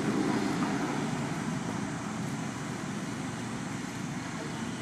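Steady outdoor background rumble with no distinct events.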